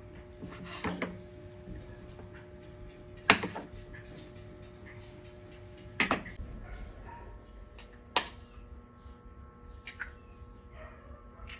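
Occasional sharp knocks and clicks, about five in all, spaced a couple of seconds apart, over a faint steady hum.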